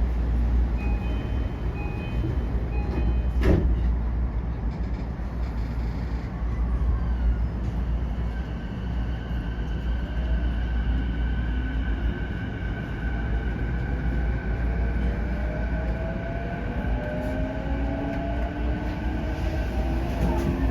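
JR E233 series 8000 electric train's running sound: a steady low rumble with a sharp click a few seconds in, then a whine of several tones whose lower lines rise steadily in pitch over the last few seconds as the train gathers speed.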